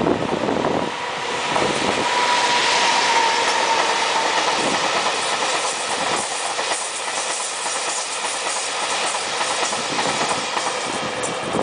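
JR Freight EF510 electric locomotive passing close by, followed by a string of tank wagons rolling past with a steady rumble and the clickety-clack of their wheels over the rail joints. A thin steady whine sounds for the first four seconds or so.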